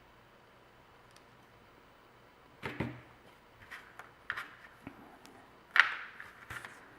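Jewelry pliers clicking and tapping against each other and a metal jump ring as the ring is gripped and opened: a scatter of short, sharp clicks starting about two and a half seconds in, the loudest near the end.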